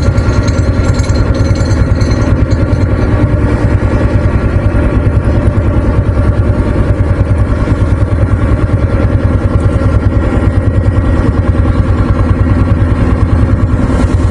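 Heavy construction machinery at the bridge's pile works runs steadily, with a deep, loud rumble and a fast, even pulsing.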